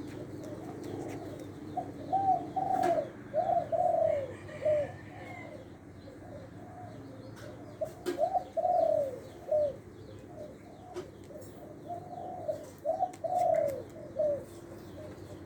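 Spotted dove cooing: phrases of several loud, arched coo notes repeated three times, with short pauses between them. It is a decoy bird whose call its keeper rates as medium-pitched.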